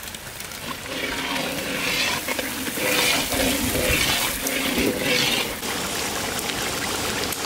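Curry masala with freshly added tomatoes sizzling in a large karahi, stirred and scraped with a long metal ladle, the sizzle swelling with each stir. From about two-thirds of the way through it settles into a steady bubbling simmer.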